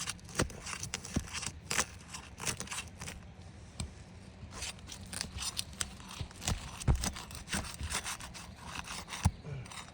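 Asphalt shingle's adhesive seal strip being broken loose from underneath: a run of irregular scraping, crackling and tearing, with a few sharper knocks, the loudest about seven seconds and nine seconds in.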